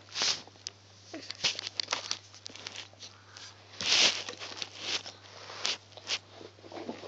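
Hands handling rubber loom bands on a plastic loom's pegs: irregular small clicks and rustles, with a louder rustle about four seconds in.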